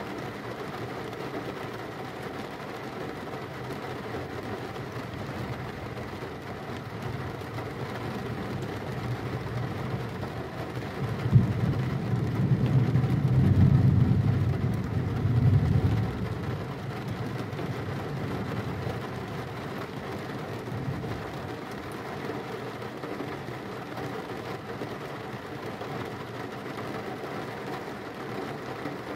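Steady rain with a thunderclap partway through: a sharp crack, then a low rumble that swells and dies away over about five seconds.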